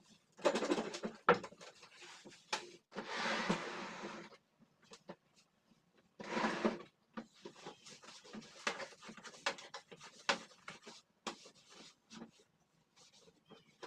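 Cloth wiping and rubbing on a surface in bursts of about a second each, mixed with scattered light knocks and clicks from things being handled.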